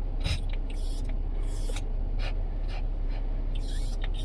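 Yorkshire terrier panting in short, breathy, irregular puffs, over a steady low hum inside the car.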